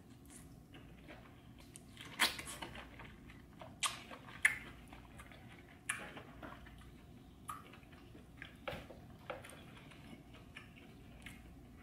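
Close-miked eating sounds: wet chewing and lip smacks as sauce is sucked off the fingers, with a string of sharp smacking clicks, loudest about two seconds in and again around four seconds.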